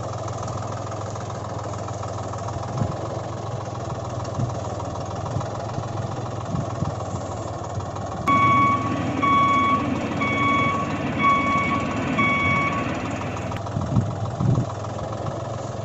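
Steady engine-like running sound. About eight seconds in, five high beeps about half a second apart, like a vehicle's reversing alarm.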